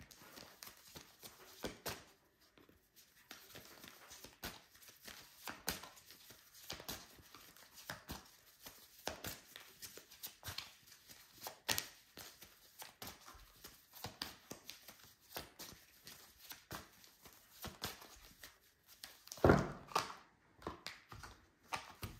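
A deck of tarot cards being shuffled by hand, the cards flicking and tapping against each other in quick, irregular clicks. About three-quarters of the way through there is a louder scuffle.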